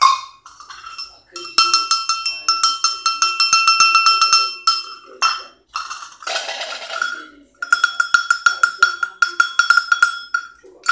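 A small hammered-metal livestock bell with a clapper, shaken by hand so it clanks rapidly with a bright ringing tone. It plays in two runs of about three seconds each, with a brief scraping rattle between them.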